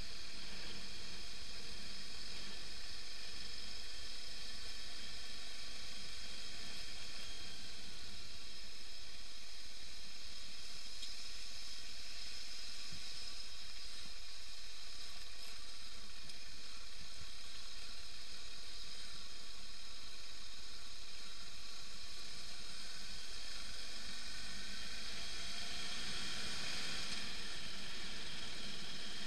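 Steady hissing rush of wind and gravel road noise from a BMW F 650 GS motorcycle riding a dirt track, with a low rumble underneath and no distinct engine note.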